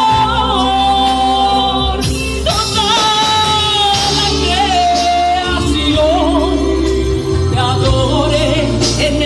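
Christian worship song: a solo singer's voice, wavering on held notes, over a steady band accompaniment with a sustained bass.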